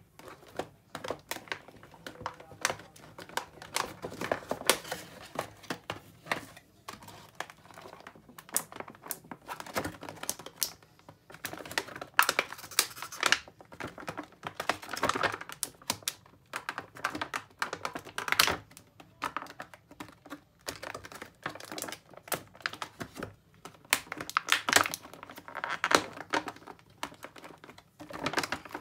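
Clear plastic blister-tray packaging crinkling and clicking as hands bend it and work an action figure out of it. It is a dense, irregular run of sharp crackles and taps, with short lulls.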